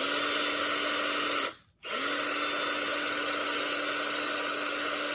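Electric drill running steadily, with the hiss of a fresh sandpaper strip scouring gunk off a lawn mower wheel part as it spins. It runs about a second and a half, stops briefly, then runs about three seconds more and cuts off.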